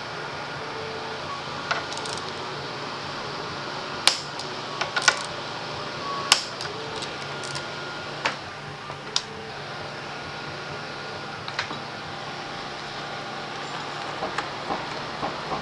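A few sharp, scattered metallic clinks and taps of tools and small parts being handled, over a steady fan hum.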